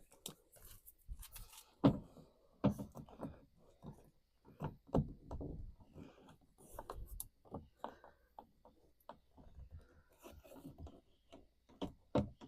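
Scattered knocks, clicks and rubbing from tools and parts being handled while working on a car door, with a few louder knocks about 2, 3 and 5 seconds in and again near the end.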